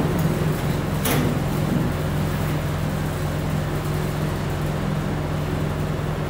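Band saw running steadily with an even motor hum, and a brief knock about a second in.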